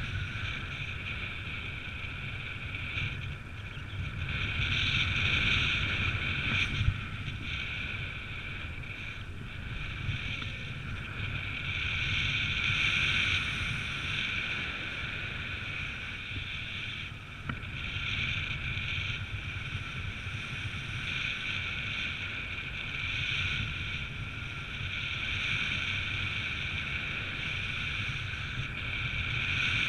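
Airflow buffeting the microphone during paraglider flight: a low wind rumble under a steady high hiss that swells and fades every few seconds.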